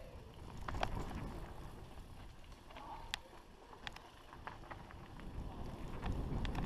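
Mountain bike rolling fast down a dirt singletrack: a rough rumble from the tyres on the ground and wind on the microphone, with frequent sharp clicks and knocks as the bike rattles over bumps and stones.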